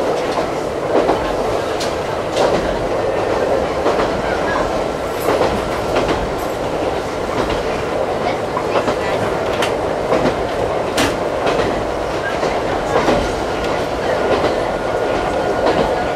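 Ichibata Electric Railway 2100-series electric train running at speed, heard from inside the passenger car: a steady rumble with the wheels clicking over rail joints at irregular intervals and a faint steady whine.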